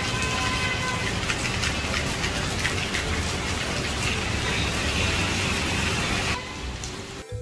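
Heavy rain falling onto a waterlogged street and pavement: a dense, steady hiss full of fine drop patters. It drops away about six seconds in.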